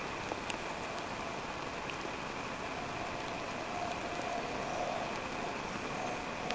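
Steady, even outdoor background hiss with a few faint ticks.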